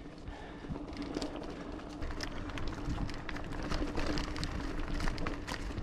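Giant Fathom 2 hardtail mountain bike coasting down a rough dirt trail: tyres rumbling over the ground, chain and frame rattling with many quick clicks and knocks, over a steady buzz from the freewheeling rear hub.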